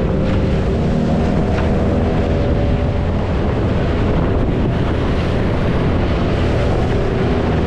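Small outboard motor on an aluminium jon boat running steadily at speed, with water rushing past the hull and wind buffeting the microphone.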